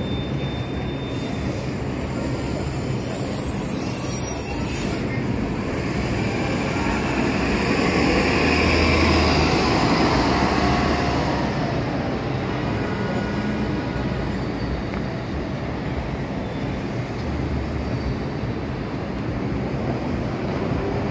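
New Flyer C40LF CNG transit bus pulling away and driving past, its engine running with a low hum that grows louder as it goes by, among the noise of other traffic. A brief hiss comes about three seconds in.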